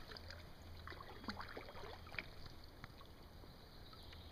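Faint small splashes and drips of river water around a drifting two-person inflatable boat, over a low steady rumble.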